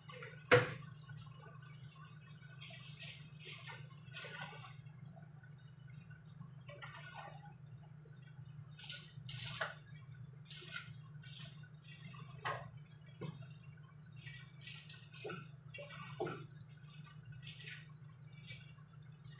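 Cooked noodles being tossed and stirred in a large pot with a wooden spatula and hands: irregular short rustling and scraping strokes over a steady low hum. One sharp knock comes about half a second in.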